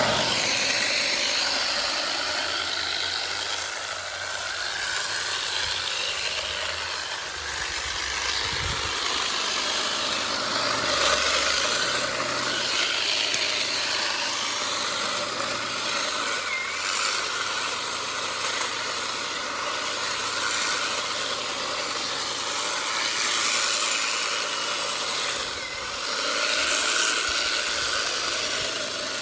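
Battery-powered Ego multi-tool with its hedge-trimmer attachment running at speed, a steady electric motor whine with the reciprocating blades cutting through a Nandina hedge's thick stalks.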